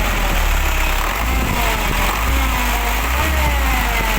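Isuzu lorry diesel engine idling with an unwanted noise, a wavering whine over the steady low running. The noise is later traced to the belt-driven water pump and cooling fan, since it stops once the belt is removed.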